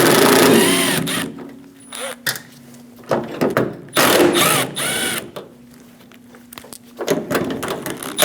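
Cordless drill-driver with a T30 Torx bit backing out the door lock actuator's mounting screws, in several bursts of the motor whose pitch rises and falls.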